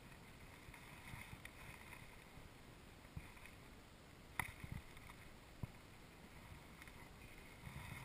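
Near silence with faint outdoor background noise and light low rumble on the microphone. A few small knocks come from the wooden beehive boxes being handled, the sharpest about four seconds in and a smaller one a second later.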